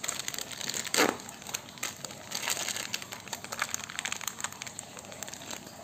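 Plastic sachet of powdered milk being crinkled and torn open by hand: a run of small crackles, with one louder crackle about a second in.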